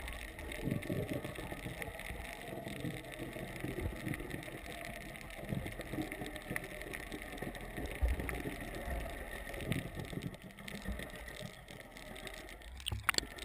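Muffled, noisy rush of seawater around a waterproof action-camera housing held underwater, with irregular low thumps from water movement against the case. A few sharp clicks come near the end.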